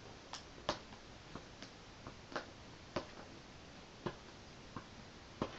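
Fingernails picking at a security sticker on a plastic DVD case: about ten light, irregularly spaced clicks.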